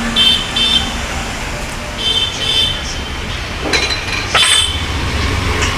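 Road traffic noise, a steady rumble, with several short high-pitched chirps in the first half and two sharp clinks near the end.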